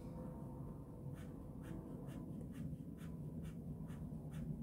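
Ink pen scratching short hatching strokes onto drawing paper: quick, evenly spaced strokes, about two a second.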